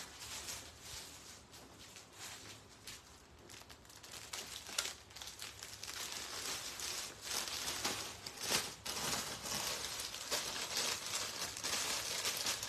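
Clothing fabric rustling and crumpling as garments are handled and folded, soft irregular rustles with a few light clicks, a little louder from about a third of the way in.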